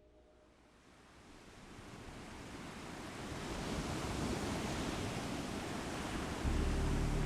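Sea surf and wind, fading in from quiet over the first few seconds to a steady wash of noise. A low rumbling drone with a steady hum joins about six and a half seconds in.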